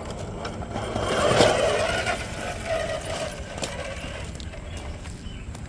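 Small electric motor of a 1/10-scale RC rock crawler whirring as it drives over the course, loudest about a second and a half in, with scattered clicks.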